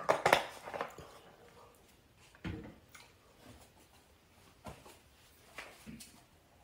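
Irregular crunching and crinkling close to the microphone, loudest in the first second and then in short scattered bits: a person eating a crunchy snack from a bag.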